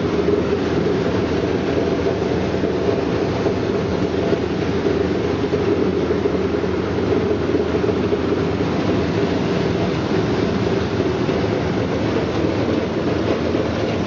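Brush-roller vegetable washing and peeling machine running, a steady, unbroken mechanical rumble of its motor and turning brush rollers.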